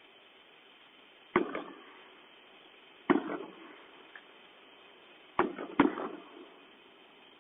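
Firework bangs: four sharp reports with short echoing tails, the last two about half a second apart.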